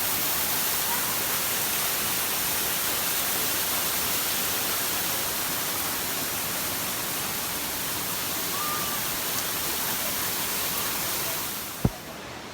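A waterfall's water rushing steadily. Near the end the noise drops away suddenly, followed by a single sharp click.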